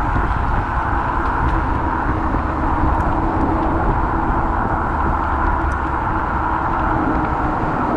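Steady traffic and road noise with a constant low rumble while riding a Kaabo Wolf Warrior electric scooter on city streets.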